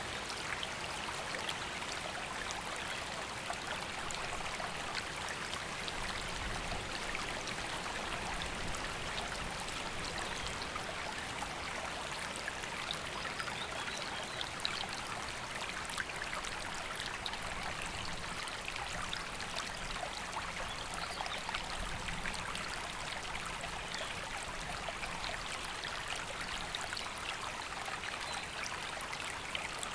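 River water flowing steadily, an even, unbroken babble of running water.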